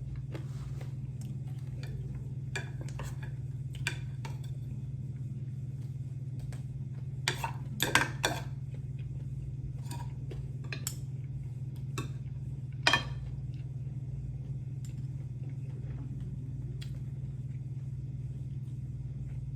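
Scattered clinks and taps of cutlery against dishes, the loudest coming as a quick cluster around the middle and one more a few seconds later, over a steady low hum.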